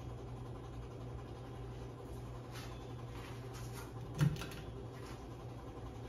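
A Hunter Caicos ceiling fan running with a steady low motor hum; the fan has a bad capacitor. A short knock sounds about four seconds in.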